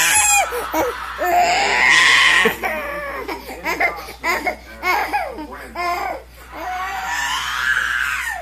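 A toddler's loud, high-pitched crying-like vocalizing: long wails about two seconds in and again near the end, with short choppy bursts between.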